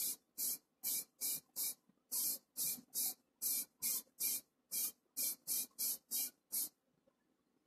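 Aerosol can of grey primer sprayed in short, quick hissing bursts, about two or three a second, which stop near the end.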